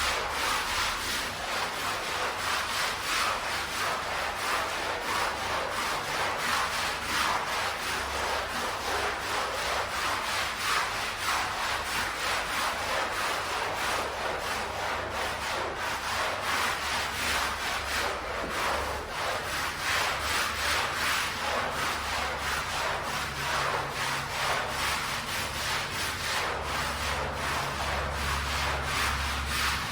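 Stiff brush scrubbing a wet, foamy carpet in rapid, continuous strokes.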